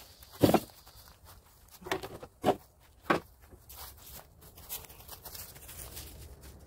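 Footsteps crunching through dry leaf litter close to the microphone: four loud crunches in the first half, then softer, sparser steps.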